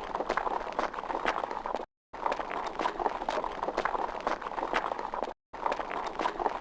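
Horse galloping: a fast, uneven run of hoofbeats, broken by two brief dead-silent gaps about two seconds and five and a half seconds in.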